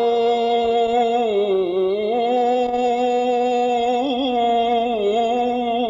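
A man singing one long, slightly wavering held note in an Arabic devotional song (nasheed).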